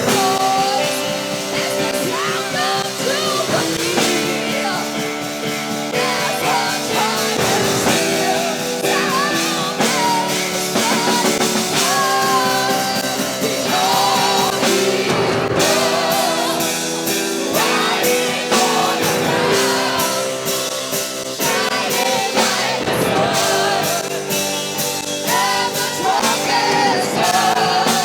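Church worship music: a band with singing voices, guitar and drum kit playing steadily.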